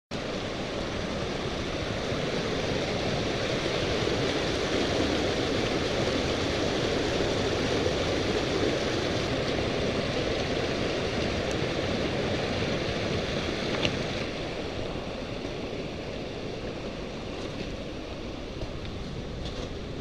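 Water rushing steadily as a mountain stream pours down into a corrugated metal culvert pipe, a little softer and duller about two-thirds of the way through.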